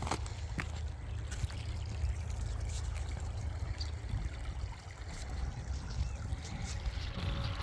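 Small creek trickling steadily over a shallow bed, under a steady low rumble. There are a couple of sharp crunches right at the start.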